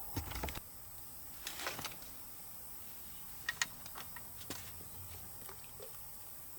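A few light rustles and short sharp clicks of things being handled, loudest in two clusters in the first two seconds, with a single sharper click a little after halfway.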